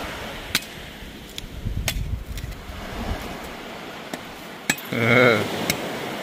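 A handful of sharp, separate knocks or taps at irregular intervals, with a brief vocal sound about five seconds in.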